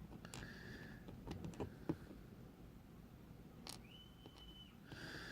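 Faint scattered clicks and taps of small brass lock pins and springs being picked up and set down while sorting them into a pin tray. A short steady high tone sounds briefly about four seconds in.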